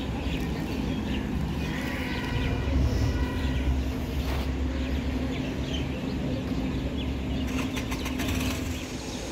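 Air-conditioned coach bus under way: a steady low engine and road rumble with a constant hum. Short high-pitched tones come through about two to three seconds in.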